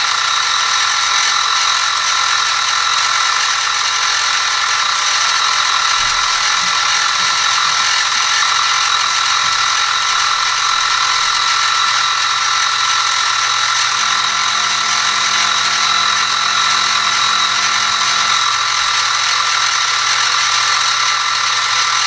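X2 mini-mill running with an end mill cutting a small metal block: a loud, steady machine whine with hiss that holds unchanged throughout.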